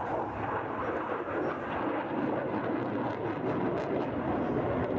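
Jet noise from a Panavia Tornado, a twin-engined RAF jet, flying past: a dense, steady rushing roar that grows slightly louder near the end.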